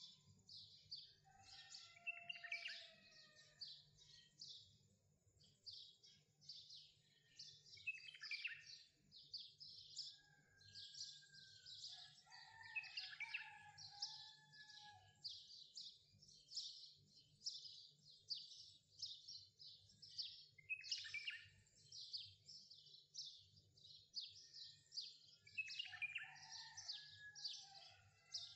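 Birds chirping: a dense run of quick high chirps and twitters, with lower whistled notes sliding downward now and then.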